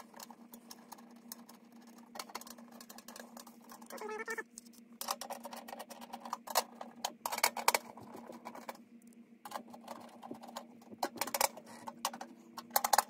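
Hand-tool work on a blower motor's metal mounting arms: irregular metal clicks, taps and scrapes, with a short squeak about four seconds in, over a steady low hum.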